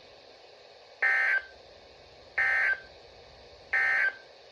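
NOAA Weather Radio's EAS SAME end-of-message data signal: three identical short buzzy bursts of two-tone digital data, each about a third of a second long and about 1.3 s apart, marking the end of the alert.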